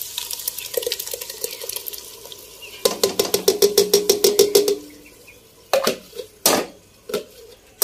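Blended tomato paste poured into a hot steel pot of fried onions, sizzling. About three seconds in comes a quick run of ringing taps on the steel pot, about eight a second, as the plastic jug is knocked empty. Two single knocks follow.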